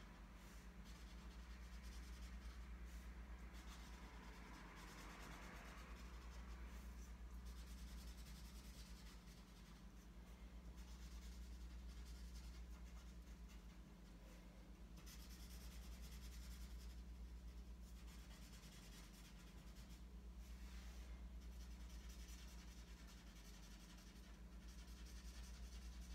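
Faint scratching of a felt-tip marker colouring in on paper, in stretches of short strokes, over a low steady hum.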